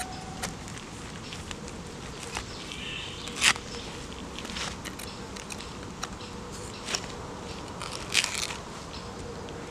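Knife blade cutting into a pineapple's rind and crown, giving a string of short crisp crunching cracks, the loudest about a third of the way in and another burst near the end.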